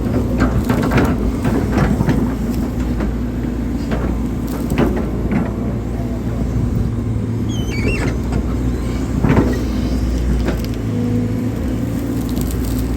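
Hydraulic excavator's diesel engine running steadily under load, with repeated scrapes and knocks as the bucket digs into soil.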